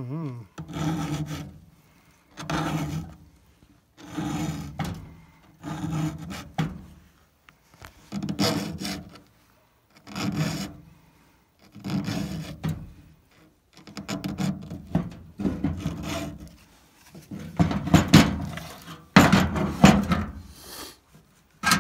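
Round chainsaw file rasping across the cutter teeth of a Stihl chain in about a dozen separate push strokes, roughly one every one and a half to two seconds, the last few louder: hand-sharpening the chain.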